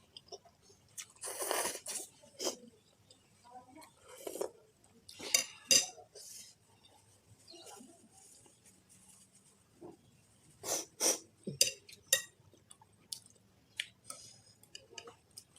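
Eating a spicy instant noodle soup close to the microphone: cutlery clinking against the bowl at irregular moments, with short noisy slurps and chewing in between.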